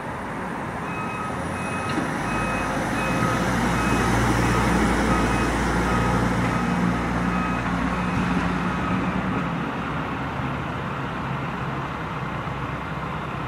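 An ambulance's engine runs as it drives past and away, swelling to its loudest mid-way and then easing. A steady series of short electronic beeps, like a backup alarm, sounds over it through the first two-thirds.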